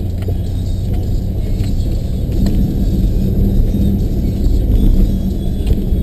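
Plow truck engine running as the truck drives through a snowy lot, a steady low rumble heard from inside the cab that grows louder toward the end.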